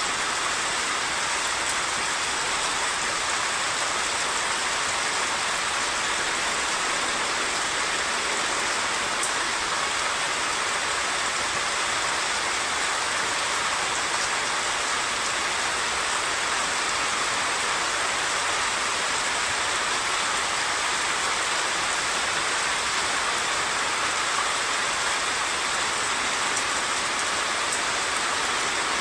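Steady heavy monsoon rain, a continuous even hiss, mixed with the rush of a stream swollen in flood to danger level.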